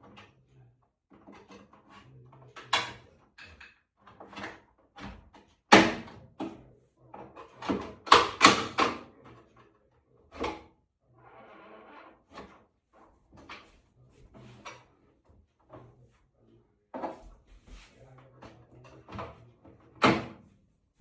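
Irregular clicks, knocks and clacks of a microwave oven's door and latch being handled and worked on, with the loudest knocks about 6 seconds in, in a cluster about 8 to 9 seconds in, and near the end. The door is not closing properly because its spring has come loose.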